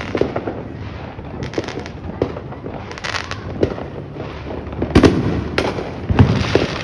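Fireworks going off: a string of sharp bangs and pops over steady crackling and hiss, with the loudest bangs about five and six seconds in.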